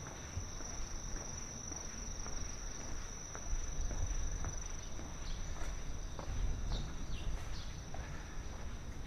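Insects trilling steadily at one high pitch, with the soft steps of someone walking and a few short, high chirps in the second half.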